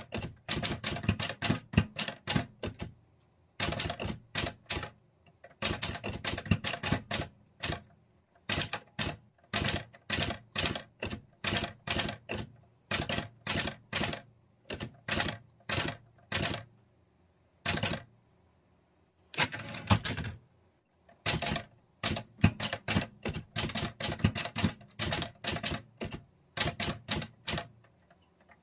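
Olivetti Linea 98 typewriter keys striking in quick runs, a burst of clacks every second or two with short pauses between words and lines.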